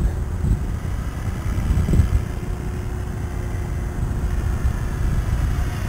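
Helicopter flying at a distance, heard as a faint steady hum over a low rumbling noise.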